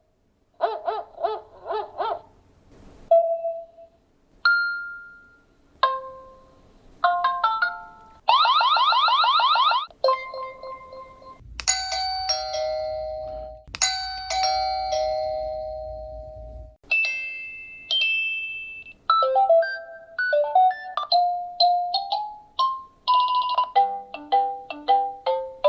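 A series of Wyze video doorbell chimes played one after another: quick repeated beeps, single ringing tones, a warbling trill, a two-note ding-dong given twice, and short fast melodic chime tunes near the end.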